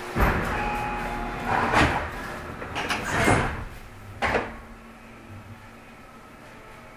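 Tobu 50050 series train's sliding passenger doors closing before departure. A sudden thud comes just after the start, louder rushing noise follows around two and three seconds in, and a final thud comes about four seconds in as the doors shut.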